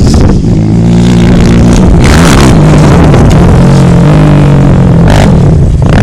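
ATV engine running hard under changing throttle, its pitch rising and falling several times, with a dense noisy rush over it.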